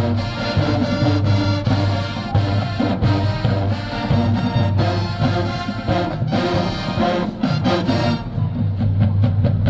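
HBCU-style marching band playing at full volume, with brass (trumpets and trombones) over drums. About eight seconds in the high brass drops back and the drum strokes stand out.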